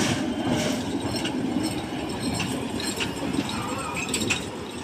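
Miniature ride train rolling along its track: a steady low rumble with a few scattered clicks and clinks.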